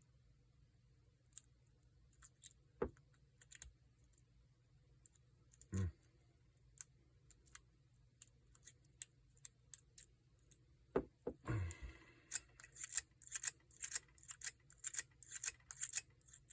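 Lock pick working the pins of a Paclock 90A-PRO padlock against a tensioner. Scattered light clicks and a few low knocks, then rapid, dense clicking for the last few seconds as the pick is worked faster.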